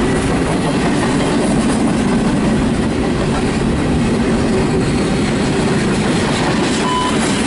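CSX double-stack intermodal freight train rolling steadily past at close range: container-laden well cars rumbling on steel wheels over the rails.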